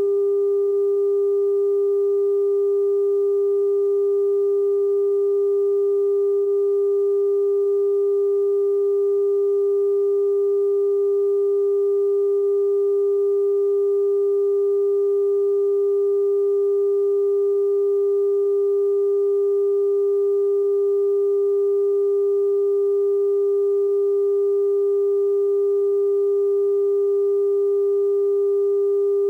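Continuous line-up test tone accompanying broadcast colour bars: a single steady pitch with fainter higher tones above it, unchanging in level. It is the reference tone recorded with bars on a videotape for setting audio levels.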